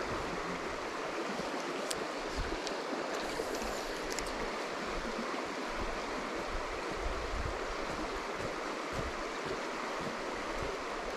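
Steady rushing of a fast-flowing mountain river, with some low rumbling gusts underneath.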